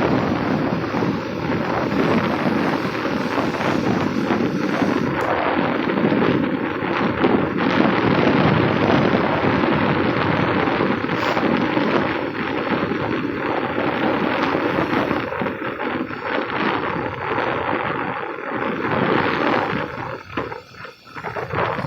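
Wind buffeting the microphone in a steady rush with gusty flutters, easing briefly near the end.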